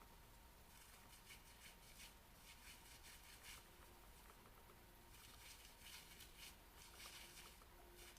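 Faint, irregular scratching and rustling close to the microphone, from ASMR ear-cleaning tools.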